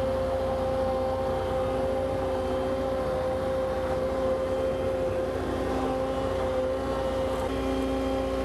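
Skid steer engine running steadily with a constant whine while the machine works its hydraulic root grapple under a tree trunk.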